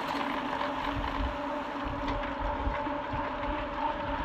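Mountain bike rolling at speed: a steady hum from the tyres and drivetrain, with wind buffeting the microphone in uneven low gusts.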